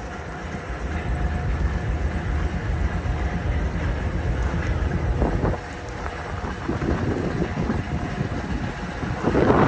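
Diesel locomotive engine running with a steady low rumble, heard close alongside, with wind buffeting the microphone and a louder gust near the end.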